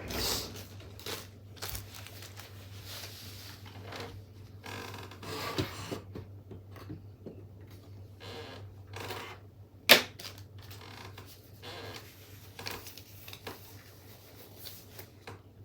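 Workbench handling noises: scattered rustling and light clicks and knocks, with one sharp loud click about ten seconds in. A steady low hum runs underneath.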